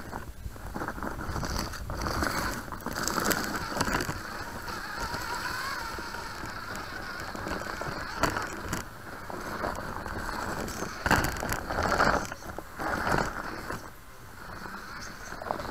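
Small RC crawler truck's electric motor and gears whining as it crawls over dirt and tree roots, with the body knocking and rattling over bumps, louder a few times in the second half.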